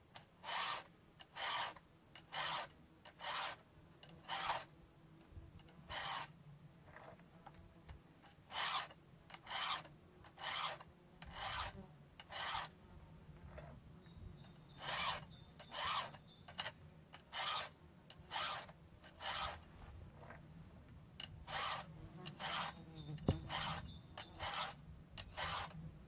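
Round file rasping across the cutters of a chainsaw chain as it is sharpened by hand. Short push strokes come about once a second in runs of several, with brief pauses between runs, and there is a single light knock near the end.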